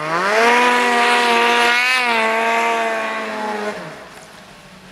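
Ski-Doo MXZ XRS 800 E-TEC snowmobile's two-stroke twin revved hard. Its pitch climbs quickly, holds high for about three and a half seconds with a brief extra blip near the middle, then drops back toward idle near the end.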